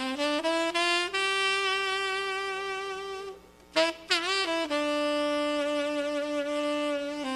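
Solo saxophone playing a slow melody. A quick rising run leads into a long held note, then a short breath pause. A note bends down and back up, and a second long held note follows, slightly lower.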